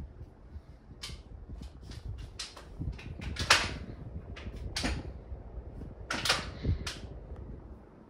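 Small BLDC socket ceiling fan running on low, giving a low rumble of moving air. Over it comes an irregular string of rustling scrapes and clicks, the loudest about three and a half seconds in.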